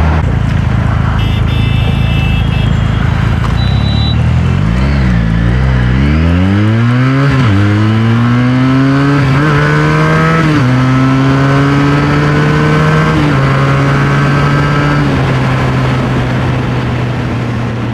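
Motorcycle engine accelerating hard through the gears from the rider's seat: the revs climb, then drop briefly at each upshift, about five times, with each rise slower than the last, over a steady rush of noise.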